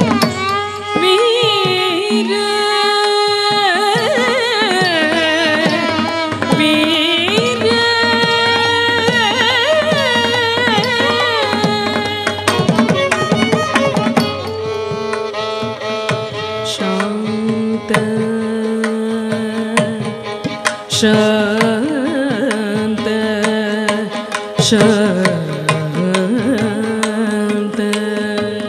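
Carnatic music of a varnam in raga Todi: a melody with gliding ornaments over a steady drone, with mridangam drum strokes.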